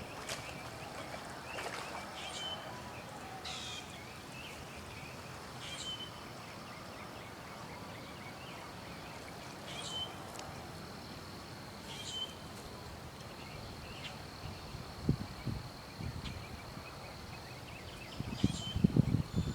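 Outdoor pond ambience. A bird repeats a short, high call that drops at the end, every few seconds. From about a third of the way in, a steady high insect hum runs beneath it. Near the end come several loud, low thumps.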